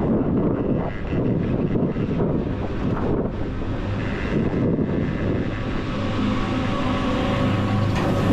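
Steady low rumble of wind and machinery noise on a chairlift ride. A droning tone fades in over the last few seconds as music begins.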